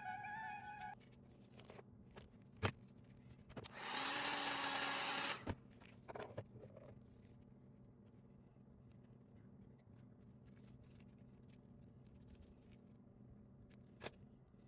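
Background music that stops about a second in, then faint small clicks of tools working on a phone, broken by a brief whirr of a small power tool lasting about a second and a half, and a sharp click near the end.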